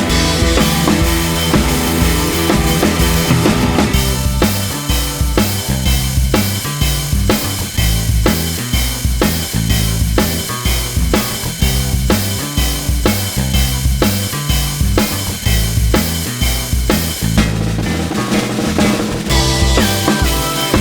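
Background music with a steady drum beat and bass line, easing off briefly near the end before the beat returns.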